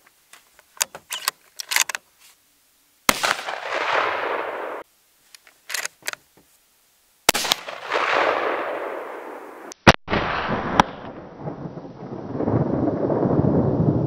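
Sharp metallic clicks of a scoped bolt-action .308 hunting rifle being handled, then two rifle shots about four seconds apart, each followed by a long echo. Near ten seconds in comes another sharp report, and then a long rumbling noise.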